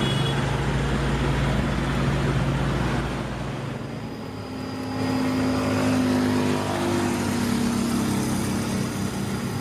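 Radio-controlled excavator's motors running with a steady drone. About three and a half seconds in, the low drone drops away and higher whining tones take over, shifting in pitch as the machine works.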